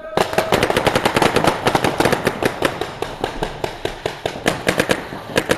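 Many paintball markers firing reball at once: a dense, rapid crackle of shots starting suddenly and going on throughout, easing off a little near the end. A short steady tone sounds right at the start.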